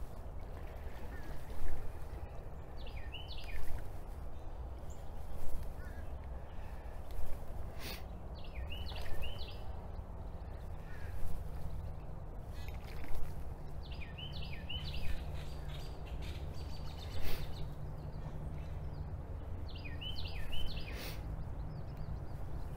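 Ducklings peeping: quick runs of thin, high, falling peeps in four bursts several seconds apart, over a steady low hum and soft thumps about every two seconds.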